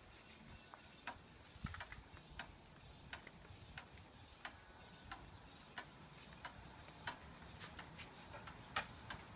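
Faint, sharp clicks or ticks at a walking-pace rhythm, roughly three every two seconds, over a low steady hiss.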